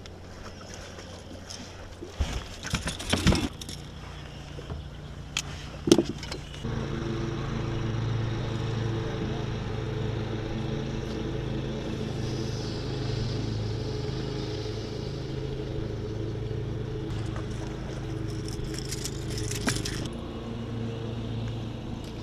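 A few knocks and rattles on the boat, then a boat motor starting up about a third of the way in and running steadily at one pitch for the rest of the time.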